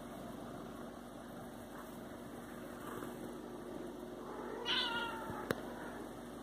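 Siamese cat giving a short, pitched, meow-like call about three-quarters of the way through, the odd noise it makes when it wants to play. Fainter calls come before it, and a single sharp click follows.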